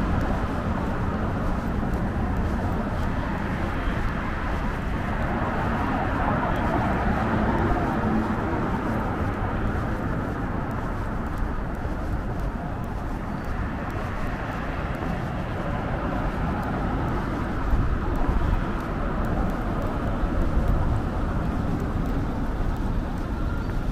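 Road traffic on a busy city avenue: cars passing in a steady wash of engine and tyre noise with a low rumble underneath.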